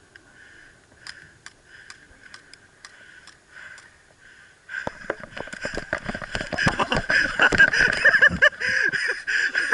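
A series of sharp clicks and knocks over a steady high tone: a few faint ones at first, then from about halfway a much louder, dense, irregular run of them.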